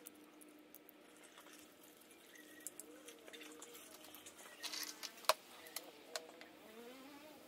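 Faint, sharp metallic clicks and taps, a handful of them over the second half, as loosened nuts and washers are worked off a VW transmission's bolted side cover with a wrench and fingers.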